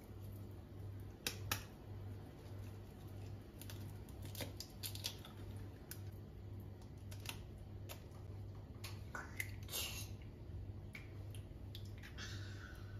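Faint, scattered light clicks and taps of small objects being handled, a dozen or so spread unevenly, over a low steady hum.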